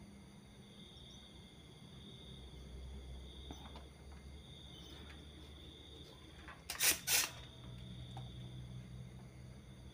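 Two sharp snaps about a quarter second apart, a few seconds in, over quiet workbench room tone with a faint steady high whine. They fit a spring-loaded desoldering pump firing as solder is cleared from the horizontal output transistor's pins.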